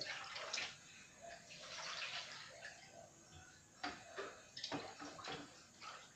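Water splashing and sloshing as hands work in a bucket of water, with a few sharp knocks and clinks of kitchenware about four and five seconds in.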